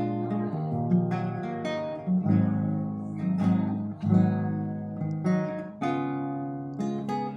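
Classical guitar with a meranti body and mahogany neck, played as a sound check: a run of chords, each struck and left to ring, about one a second.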